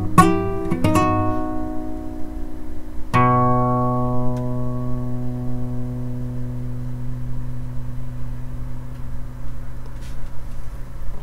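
Guitar music: a few quick strums, then a final chord struck about three seconds in that rings out and slowly fades.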